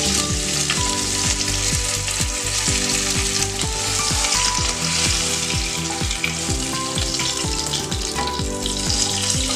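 Fish pieces sizzling in hot mustard oil in a kadai, a steady frying hiss, over background music with a regular beat.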